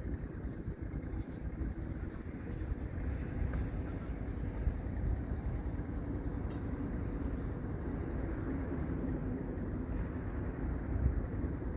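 Strong wind blowing on the microphone: a steady low rumble, with a faint click about six and a half seconds in.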